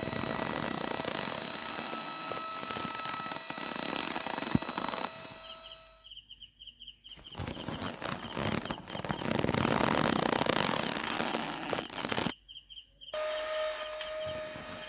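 Small DC motor of a toy crane's string winch whining steadily as it hoists a pole, with one sharp click about four and a half seconds in.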